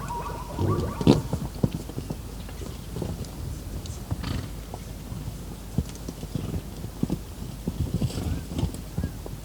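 Zebra hooves, an irregular run of steps and knocks on the ground as zebras walk.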